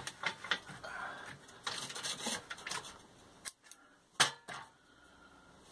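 A sawn wooden slab and a steel cutting jig being handled: light clatters and knocks of wood on metal, with one sharp knock about four seconds in as the slab is lifted out.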